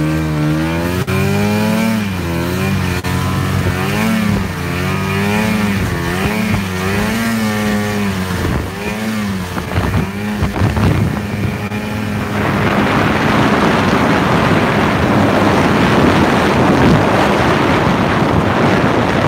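Snowmobile engine running along a trail, its pitch rising and falling with the throttle. About two-thirds in, a louder, even rush of wind over the microphone takes over and drowns out the engine.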